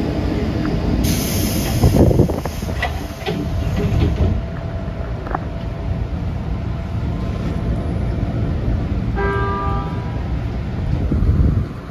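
JR 205-series electric train running, heard from the driver's cab, with steady rumble and rail noise. A louder rush of noise comes in the first few seconds while a freight train of tank wagons is on the next track. About nine seconds in, the train's horn gives one short blast.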